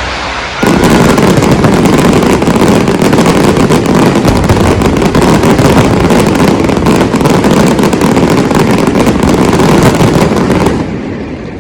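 Dense barrage of fireworks: rapid crackling bursts packed so close they merge into one continuous loud rush. It starts suddenly under a second in and stops shortly before the end, fading away.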